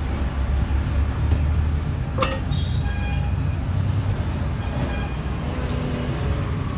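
Steady low rumble of road traffic, with a sharp click a little past two seconds in.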